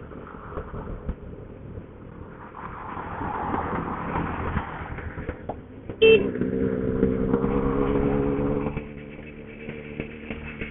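Motorcycle ride: road and wind noise, then about six seconds in a sudden short sharp tone, followed by a motor engine's steady running note that wavers slightly in pitch.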